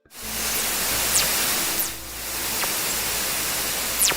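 Space-radio sonification: steady static hiss cut by several short, sharp falling whistles that are gone in under half a second, the strongest near the end. It is presented as the sound of fast radio bursts picked up in deep space.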